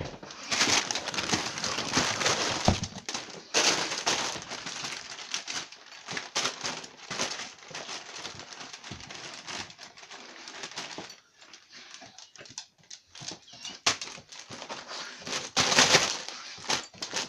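Dog ripping and rustling gift wrapping paper, in irregular noisy bursts with many small clicks and crackles.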